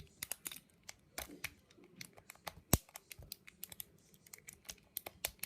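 Half-ball pick raking the pin tumblers in the control-key cylinder of an Abus 78/50 KC combination padlock: a quick, irregular run of metal clicks, with one sharp, louder click about two and a half seconds in.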